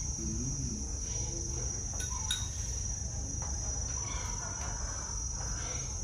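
Steady high-pitched insect chorus, of the cricket kind, with a faint voice early on and two light clicks about two seconds in.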